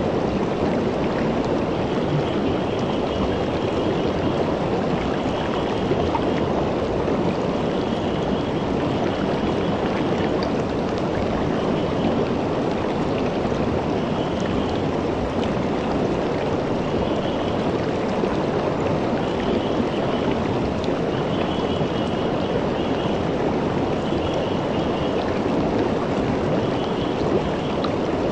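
Shallow river running over and around rocks, a steady rushing flow. Faint high trills repeat every second or two behind it.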